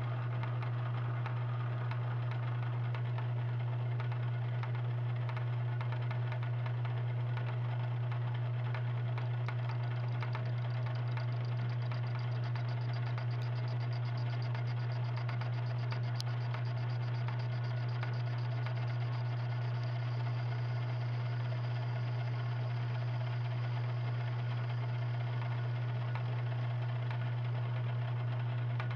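Jet BD-1340-R metal lathe running steadily at slow speed with a strong low hum, its high-speed-steel tool facing the side of a square 4140 steel block in a four-jaw chuck. The corners of the block make this a choppy, interrupted cut.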